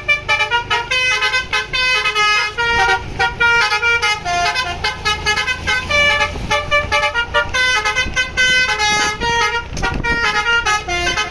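Bus with a Basuri V3 multi-tone 'telolet' horn playing a fast tune of short notes, several a second, over the low rumble of the engine.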